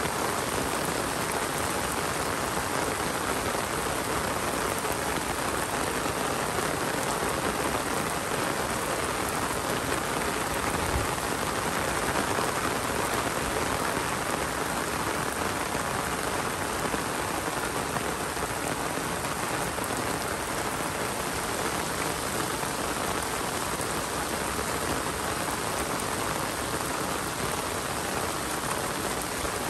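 Steady rain falling, an even hiss that neither builds nor lets up.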